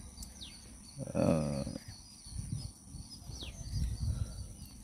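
A farm animal calls once, briefly, about a second in, a wavering call. A bird gives a couple of short falling chirps over a low outdoor rumble.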